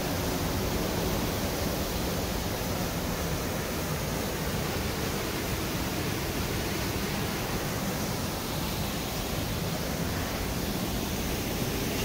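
Steady rushing of Ryūzu Falls, a cascading waterfall, running on without a break.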